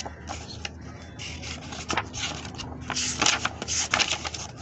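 Paper pages of a book being turned and handled, rustling in several bursts, loudest about three to four seconds in.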